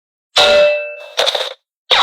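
Dubbed-in comedy metallic clang sound effects. A ringing clang comes about a third of a second in and fades slowly, a shorter one follows about a second later, and a third starts near the end.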